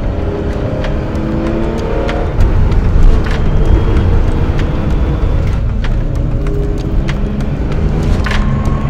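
Porsche Carrera 2.7 RS Lightweight's air-cooled 2.7-litre flat-six engine revving hard on the move, its pitch climbing through the revs and dropping back between gear changes, louder from about two and a half seconds in.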